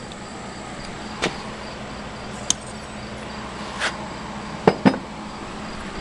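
A handful of sharp clicks and taps from tools and wire being handled, the last two close together, over a steady electrical hum.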